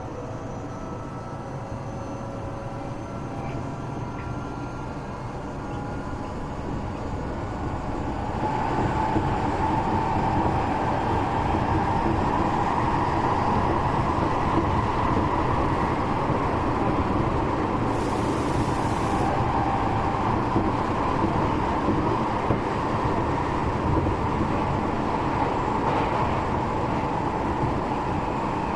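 Tokyo Metro 8000 series train running, heard from inside the passenger car. At first a faint whine rising slowly in pitch over the running noise; from about eight seconds in the noise grows louder into a steady rumble and roar of the wheels on the rails.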